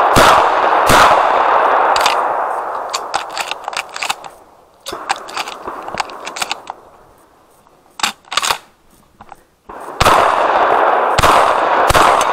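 Benelli M2 12-gauge semi-automatic shotgun firing, shots coming in quick runs about a second apart near the start and again near the end, each with a long trailing echo. Sharp metallic pings of shot striking steel targets come between them, with a quieter stretch in the middle.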